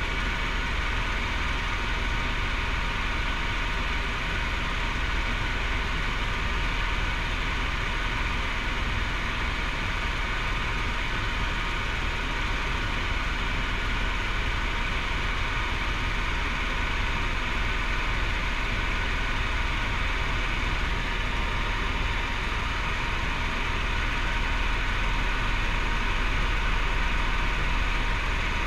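Helicopter in steady cruise heard from inside the cabin: an unbroken drone of engine and rotor, with a deep low rumble and a cluster of steady whining tones above it.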